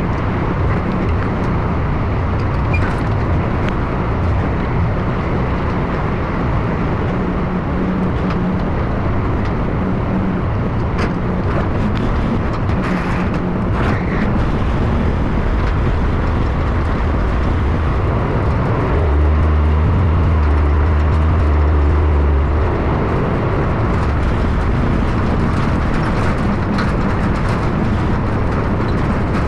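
Engine of a deuce-and-a-half military truck running steadily, with a deeper, louder hum for a few seconds about two-thirds of the way through.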